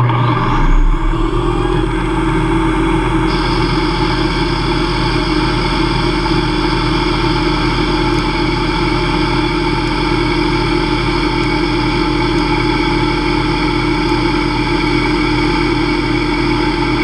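Hobby CNC lathe spindle winding up in the first second, then running steadily at 2500 RPM while a Walter carbide insert takes a light 0.005-inch finishing cut in aluminium bar. It is a steady whine of several tones, and a higher whine joins about three seconds in.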